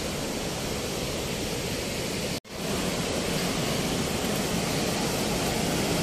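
Steady rushing of a waterfall close by, an even roar of falling water, broken by a brief dropout to silence about two and a half seconds in.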